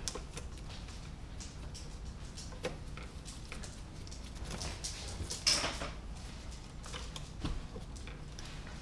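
Light clicks, taps and rustling of hands working electrical wiring and a plastic electrical box, with a louder scrape about five and a half seconds in, over a low steady hum.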